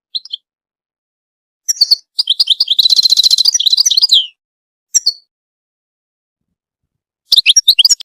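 European goldfinch singing: bursts of high twittering chirps, with a rapid trill of quickly repeated notes about three seconds in. The phrases are separated by stretches of complete silence.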